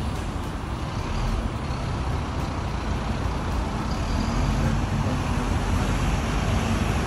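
Steady road traffic noise with a deep low rumble.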